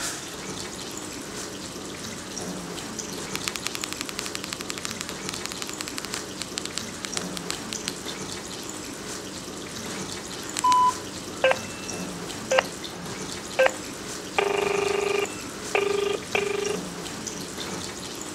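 Nokia keypad mobile phone beeping as keys are pressed: one short high pip, then three brief pips about a second apart. This is followed by the buzzing ringback tone of a call going through, one longer tone and then a pair of short ones. Under it all runs a steady hiss like running water, with a run of faint rapid clicking a few seconds in.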